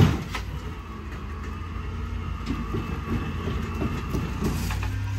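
A sharp metal bang, then heavy machinery running steadily with scattered metal clanks and creaks.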